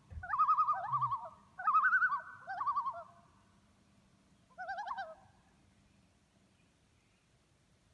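Several common loons calling together in wavering tremolo calls, overlapping in a chorus for the first three seconds. One more burst of calling comes about five seconds in, and then the calls stop.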